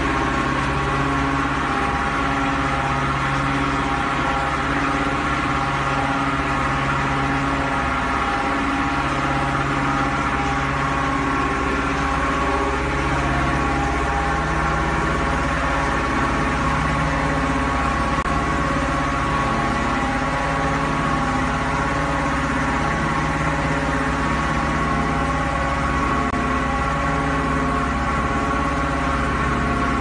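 Dewatering vibrating screen and the surrounding sand-washing plant machinery running: a steady mechanical hum and low rumble with several held tones, some of the lower tones dropping in and out every few seconds.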